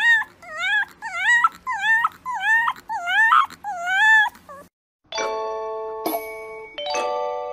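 A fluffy white puppy howling in a quick series of short, high, rising-and-falling yowls, about two a second. About five seconds in, after a brief pause, a jingle of ringing chime tones takes over.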